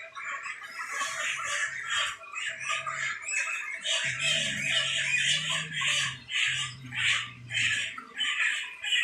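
A flock of broiler chickens calling, many short overlapping squawks several times a second. A low steady hum joins underneath about four seconds in and stops shortly before the end.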